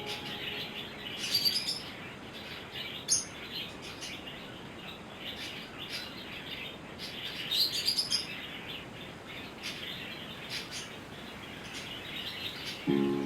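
Pet parrots chirping and chattering: a steady high twittering with several louder, rising calls, the loudest about eight seconds in.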